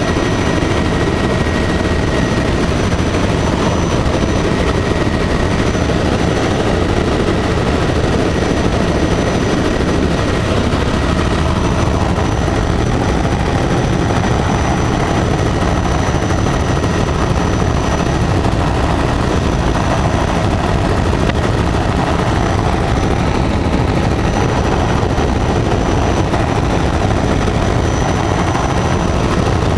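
Helicopter in cruise flight heard from inside the cabin: a steady, loud rotor beat and engine noise with a thin high whine on top.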